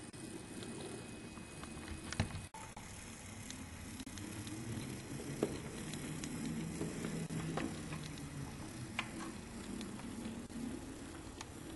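Brawa model SOB Te 31 electric tractor running along the track, its small electric motor humming steadily, with a few sharp clicks from the wheels on the rails.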